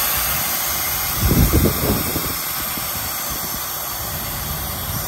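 Truck diesel engine idling under a steady hiss, with a short low rumble about a second and a half in.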